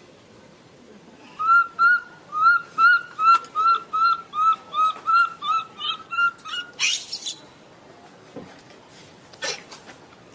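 Baby macaque giving a run of short, high-pitched distress calls, about three a second for some five seconds, then a short harsh scream.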